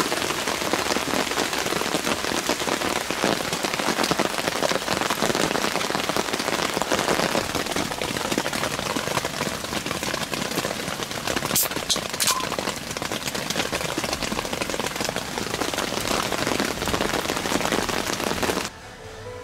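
Heavy rain pouring down, a dense steady patter of drops, with two sharp ticks about twelve seconds in. The rain cuts off abruptly near the end.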